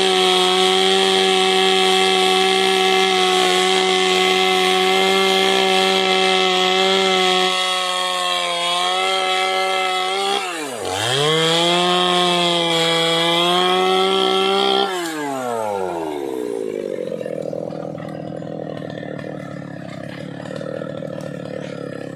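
Two-stroke chainsaw at full throttle cutting dry, hard teak. The engine note sags slightly under load, dips sharply and revs straight back up about ten seconds in, then winds down to a steady idle about fifteen seconds in.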